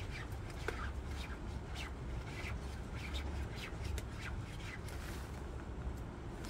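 Shiny nylon puffer jacket rustling and crinkling in short, irregular swishes as the wearer moves her arm and hand against the wet fabric, over a steady low rumble.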